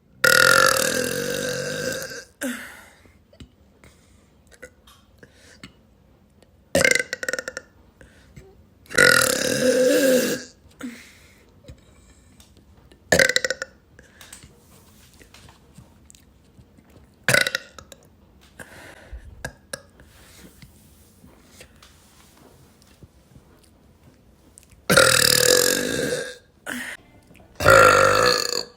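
A woman letting out a series of loud burps, about seven in all: three long, drawn-out ones and several short ones, with quiet gaps of a few seconds between.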